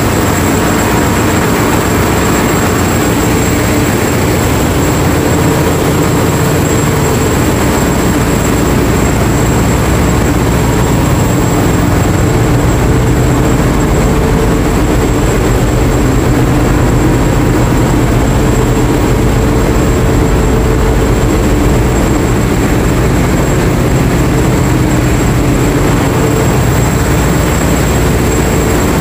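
Ship's engine room machinery running: a loud, steady, unbroken diesel drone with a steady hum and a thin high whine over it.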